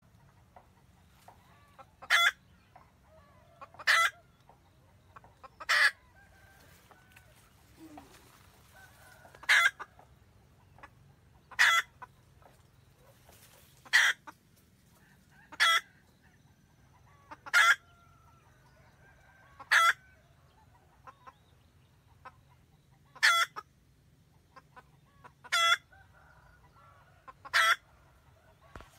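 Red junglefowl hen cackling to call the rooster: about a dozen short, loud, sharp calls, roughly one every two seconds, with fainter clucks between them.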